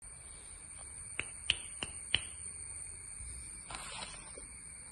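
Four sharp clicks in quick succession, about three a second, then a short rustle near the end, over a faint steady high-pitched whine.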